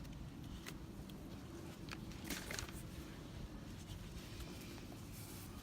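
Faint scattered clicks and light rattles of hands working a plastic cable tie around a car's cooling fan, over a steady low hum.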